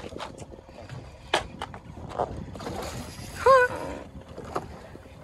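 Water and wind noise around a small boat, with a few light knocks and one brief pitched cry about three and a half seconds in.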